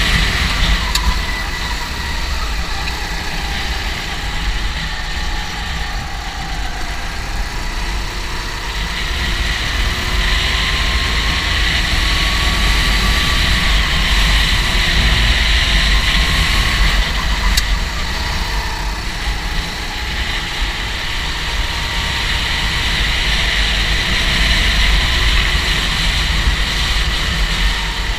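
Go-kart engine running continuously, its pitch slowly rising and falling with the revs.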